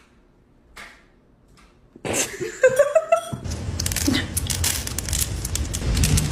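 Kitten eating dry kibble from a bowl: loud, rapid crunching and rattling of the pellets with a low rumbling undertone, beginning about two seconds in after a short rising and falling pitched sound. The first two seconds hold only faint, soft clicks.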